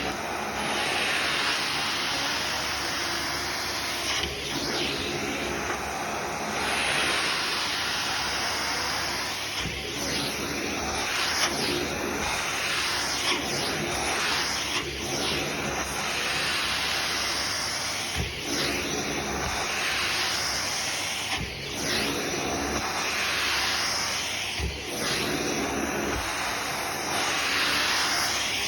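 Vacuum cleaner running steadily with a strong airflow hiss that swells and eases every second or two.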